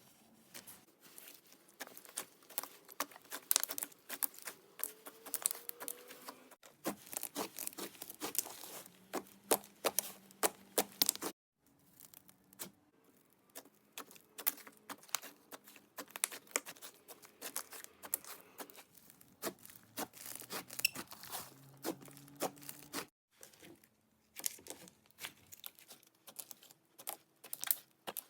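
Clay slime being squished, stretched and mixed by hand, giving dense sticky crackles and small pops. The sound breaks off abruptly three times as one clip gives way to the next.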